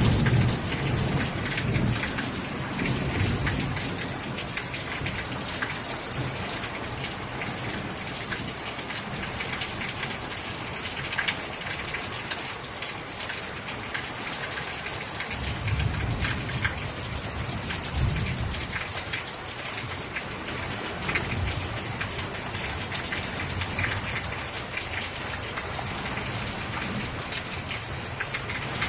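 Heavy rain pouring steadily, with dense patter of drops striking surfaces. Low rumbles of thunder swell up near the start and twice more past the middle.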